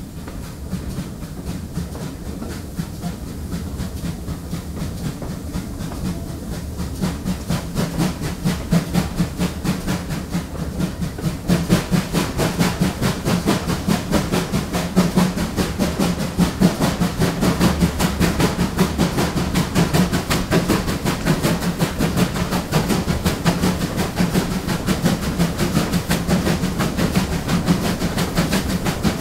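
GWR Collett Goods 0-6-0 steam locomotive No. 3205 running under way: a fast, steady rhythm of exhaust beats and clanking motion over the rattle of wheels on rail, with steam hiss. About eleven seconds in it gets louder and brighter, heard close to the turning rods and motion.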